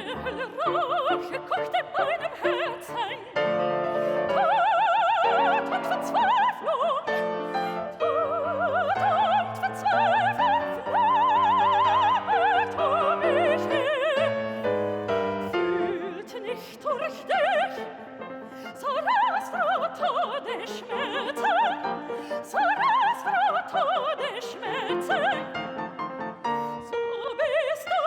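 Classical operatic singing with a wide vibrato on long held notes, over a musical accompaniment.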